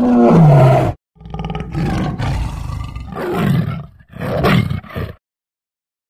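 Tiger roaring and growling: a roar that falls in pitch in the first second, then a run of rough growls that cuts off abruptly about five seconds in.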